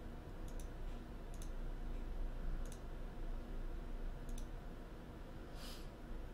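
A few computer mouse clicks, mostly in quick press-and-release pairs, spaced irregularly over a low steady hum; a brief soft hiss near the end.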